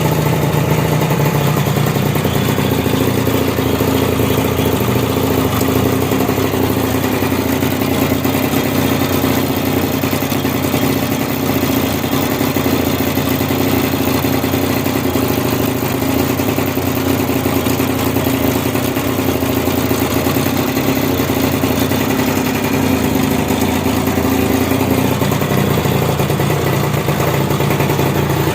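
Kreidler R50's small two-stroke engine running steadily on a test run.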